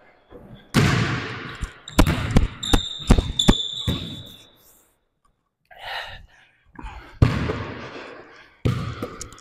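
Basketball bouncing hard on a court during one-on-one play: a string of sharp dribble bounces, with a high squeak running briefly in the middle and a short lull about halfway through.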